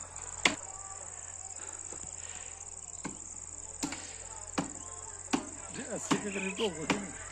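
Sharp blows of a hand tool chopping at the brick wall of a well, about one every three-quarters of a second, with a pause of a couple of seconds after the first blow. A steady high chirping of crickets goes on behind.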